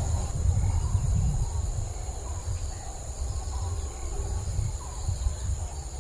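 Insects, such as crickets, keep up a steady high-pitched drone, with faint bird chirps and a low rumble underneath.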